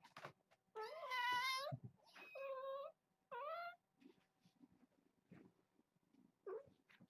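A cat meowing three times in quick succession: a long call with a wavering pitch, a shorter one, then one that rises. A fainter meow comes near the end.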